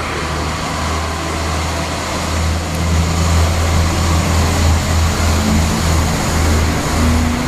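A Czech Railways Class 843 diesel railcar train passing along a station platform: a steady low diesel engine drone over the rumble of the running train, growing louder as the cars come close.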